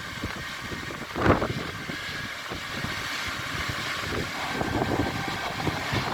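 Steady rushing of the Düden waterfall, with one brief low rumble of wind on the microphone a little over a second in.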